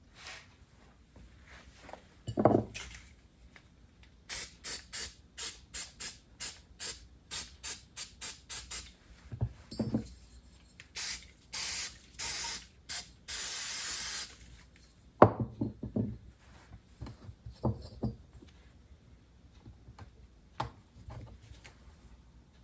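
A quick run of short hissing sprays, about three a second, then a few longer sprays ending with one of about a second. Low knocks of parts being handled come before and after.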